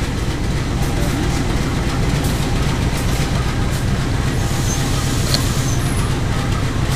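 Diesel-electric locomotive (CC 201 class) running at the platform: a loud, steady low rumble. A few faint, short high squeaks and a click come through in its second half.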